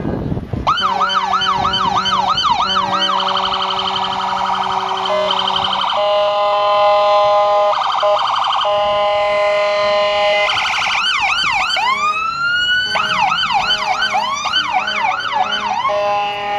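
Emergency vehicle's electronic siren cycling through its patterns: a fast yelp, then steady blaring tones and short choppy blasts, then a slow rising wail about twelve seconds in before the yelp returns.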